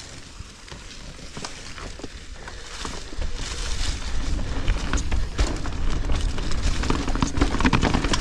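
Mountain bike rolling down a leaf-covered dirt trail: tyres crunching and crackling through dry fallen leaves with small rattles from the bike, and wind rumbling on the helmet-mounted microphone. It gets louder about three seconds in.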